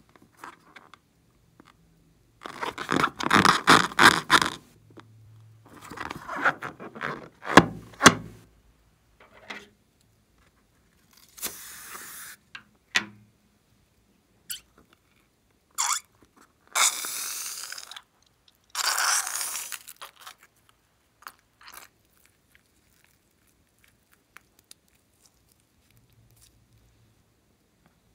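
A latex balloon filled with glitter glue being handled and squeezed over a glass bowl: scratchy, crackling rubber sounds in several separate bursts of a second or two, as the glue is pushed out into the bowl.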